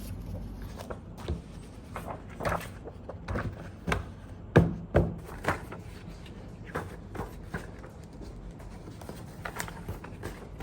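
Sheets of printed paper being handled and arranged, giving irregular light taps and knocks, the loudest two about four and a half and five seconds in.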